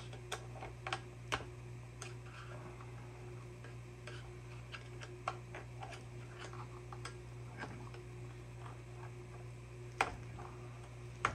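Irregular small metal clicks and scrapes of a screwdriver prying at a Jonsered chainsaw's seized chain brake, with a sharper click about ten seconds in.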